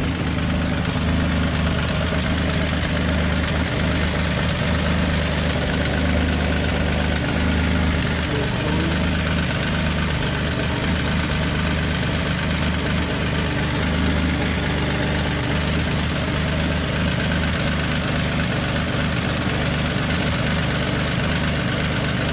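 Turbocharged V6 engine of an Infiniti G35 idling steadily, back up and running on a newly fitted starter.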